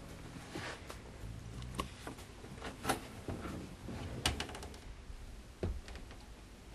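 A handful of scattered sharp knocks and clicks over room noise in a small room: a person moving about and walking out through a doorway.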